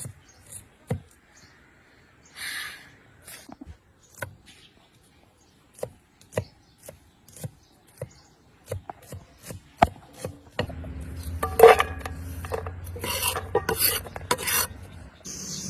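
Hand food preparation: a run of scattered short scrapes and taps. About two-thirds of the way through, busier clatter begins over a steady low hum.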